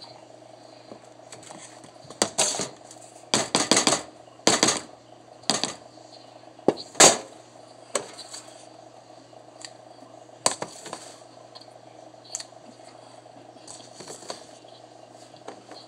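Cornstarch being poured and worked in a plastic tub: a cluster of short, crisp crunching and scraping bursts in the first half, then a few scattered soft clicks and scrapes.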